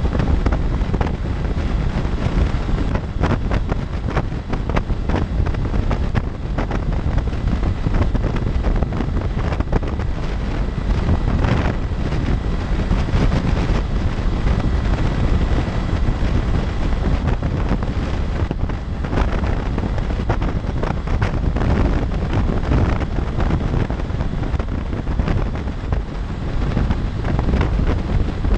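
Wind rushing over the microphone of a motorcycle at freeway speed, with frequent short buffets, over the running of the Honda CB500X's 471 cc parallel-twin engine and its tyres on the road.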